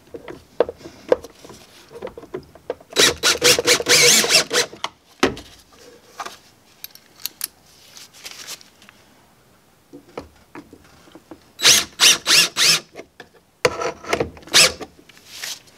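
DeWalt 20V cordless drill/driver driving self-tapping screws into the plastic battery tray, running in three short bursts: a longer run about three seconds in, then two shorter runs near the end.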